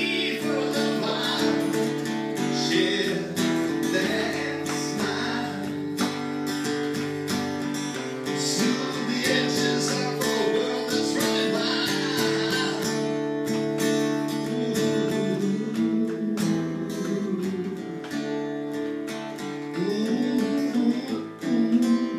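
Acoustic guitar strummed in a live song performance, chords ringing on with regular strokes, with some singing over it.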